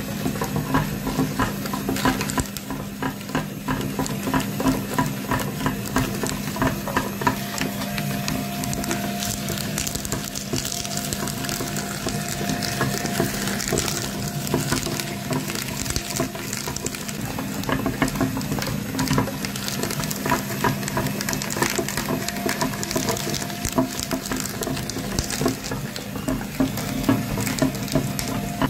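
Cast-metal meat grinder crushing brittle pieces and pushing the crumbs out through its die plate: a dense, unbroken crackling and crunching over a low steady hum.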